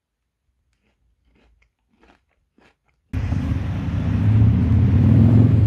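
A few faint crunches of someone chewing a bitten cookie, then an abrupt cut about three seconds in to loud, steady outdoor ambience with a deep rumble.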